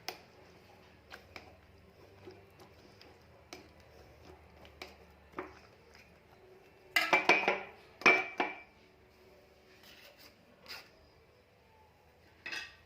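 Kitchen utensils clinking and knocking against dishes while boiled lemons are squeezed and the lemon-clove syrup is strained. Scattered light clicks give way to a short burst of louder clatter about seven seconds in, and a few more knocks come near the end.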